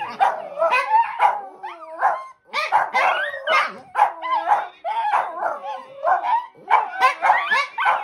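Small dogs barking and yipping almost without pause, the calls overlapping, with sliding high whines between barks.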